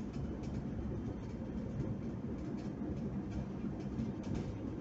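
Steady low rumble of a car's engine and tyres heard from inside the cabin while driving slowly on a road.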